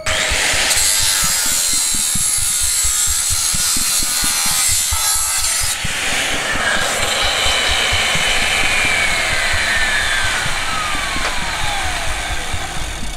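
Angle grinder working on steel, a loud, steady rasping hiss that starts abruptly. A whine falls steadily in pitch over the last few seconds.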